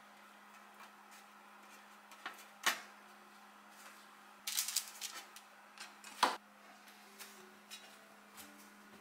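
Light clicks and taps of hands laying thin raw sweet potato slices on a parchment-lined baking tray and handling a metal tray, with a few sharper knocks, the sharpest about six seconds in. A steady low hum runs underneath.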